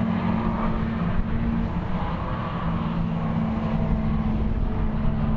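Racing saloon car engines running at speed on track, a steady engine drone with a slight shift in pitch partway through.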